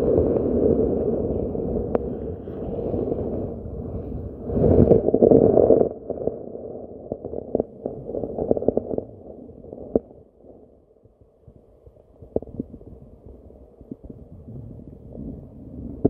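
Muffled underwater rumbling picked up by a submerged camera, swelling at the start and again about five seconds in, then dying down, with a few sharp clicks scattered through.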